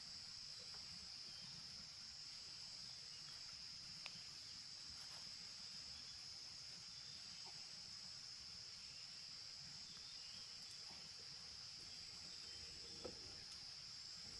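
A faint, steady high-pitched drone of insects chirring without a break, with a small click about four seconds in and a soft knock near the end.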